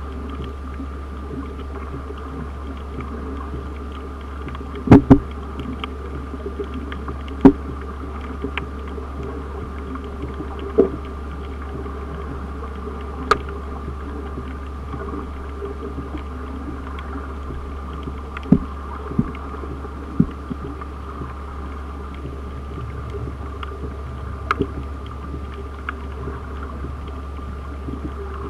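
Underwater ambience: a steady low hum, broken by about eight sharp clicks or knocks at irregular intervals.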